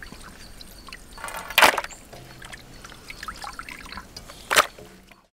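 Liquid pouring and trickling, with two louder surges, about a second and a half in and again near the end.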